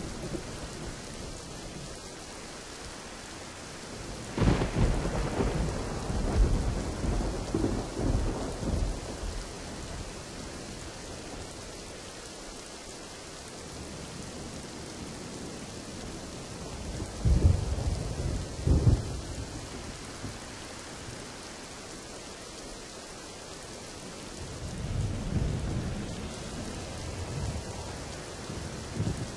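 Steady rain with rolls of thunder: a sudden clap about four seconds in that rumbles on for several seconds, two loud claps a little past the middle about a second and a half apart, and a softer roll near the end.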